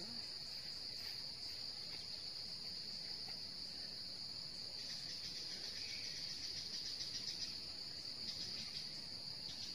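Insect chorus: a steady high-pitched buzz, with a faster pulsing trill joining in about halfway through.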